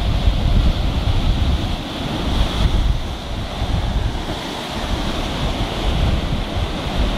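Ocean surf breaking over rocks and churning into foam: a continuous deep rushing with hissing spray, easing a little in the middle and building again near the end.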